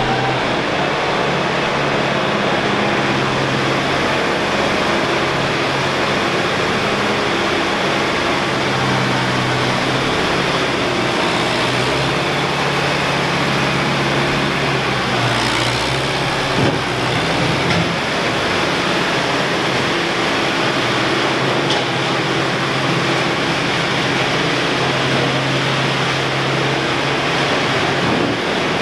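Diesel engine of a skid-steer loader running steadily while it is driven across the shed floor, with a short knock about halfway through.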